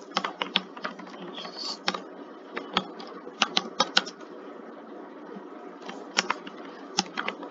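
Computer keyboard typing: quick clicks of keystrokes in three short bursts with pauses between, over a steady hiss.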